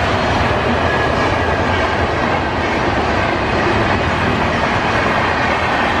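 Passenger coaches of an express train, the Mumbai Central–Indore AC Duronto Express, running past at speed: a steady noise of wheels on rails.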